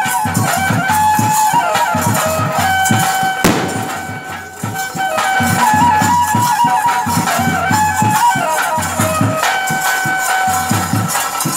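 Traditional bhuta kola ritual music: a shrill reed pipe plays a wavering, stepping melody over fast, steady drumming, with a continuous jingle of rattles or bells. The pipe breaks off and the music dips briefly about four seconds in.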